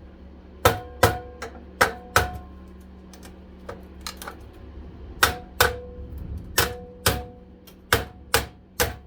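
Hammer blows on the metal of a central vacuum motor, knocking at a stuck cover: about ten ringing strikes, mostly in quick pairs, with a pause in the middle.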